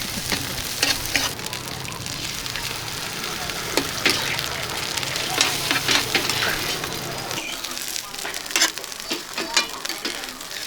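Noodles and egg sizzling on a hot pan, with frequent clicks and scrapes of a cooking utensil stirring them. A low steady hum underneath stops about seven seconds in.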